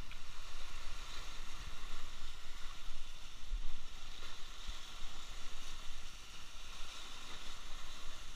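Sea waves washing and splashing against shoreline rocks, a steady surf with a low rumble of wind on the microphone.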